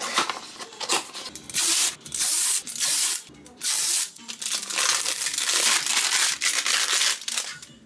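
Packaging being torn and crinkled by hand while a glass baby bottle is unwrapped: several loud rustling bursts with short pauses between them, the longest near the end.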